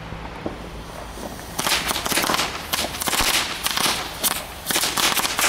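A Weco Lady Cracker 40er, a string of 40 tiny firecrackers, going off in a rapid, irregular series of small bangs that starts about a second and a half in.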